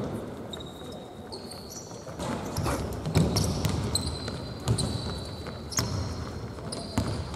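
Basketball thudding on a gym court as it is dribbled, a bounce about every second, with short high-pitched squeaks of sneakers on the floor.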